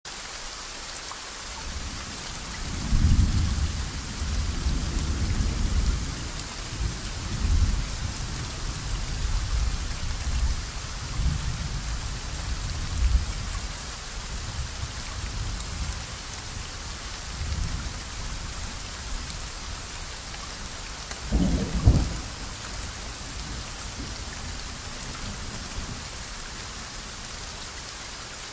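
Soft, steady rain falling, with rolling thunder that rumbles low from about three seconds in for some ten seconds, then a sharper, louder thunderclap about two-thirds of the way through.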